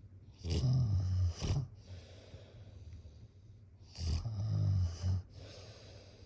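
Snoring: two loud, low snores, each about a second long, the first about half a second in and the second about four seconds in, with softer hissing breaths between them.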